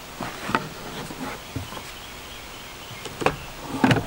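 Scattered knocks and clunks of tools being handled and set down on wooden deck boards, the loudest two near the end.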